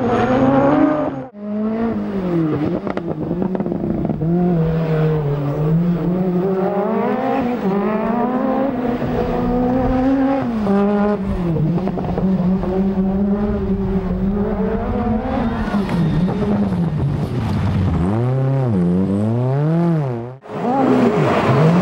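Peugeot 205 T16 Group B rally car's turbocharged four-cylinder engine revving hard and changing gear, pitch repeatedly climbing and dropping. Near the end come quick rev swings up and down, as under throttle blips and downshifts; the sound breaks off briefly near the start and again near the end.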